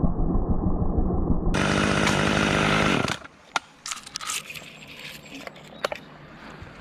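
Chainsaw engine running steadily, sounding muffled for the first second and a half, then cutting off sharply about three seconds in. Scattered sharp clicks and knocks follow over a faint rustle of branches.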